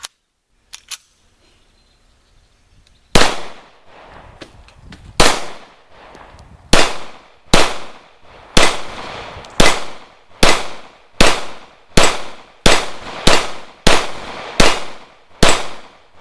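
Zastava EZ9 9mm pistol firing a string of about fourteen shots. The first ones come about two seconds apart, then they quicken to a steady pace of roughly one shot every 0.7 s, each with an echoing tail.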